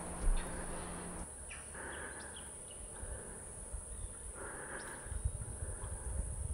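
Wetland field ambience: scattered short bird chirps over a steady high-pitched insect drone, with a low rumble rising near the end.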